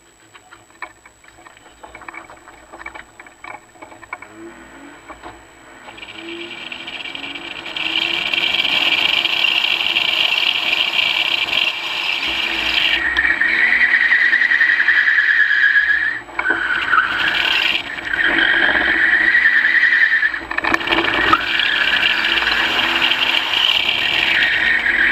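Drift car's engine revving up as it gets going, then its tyres squealing loudly and steadily through long sideways slides, broken briefly twice.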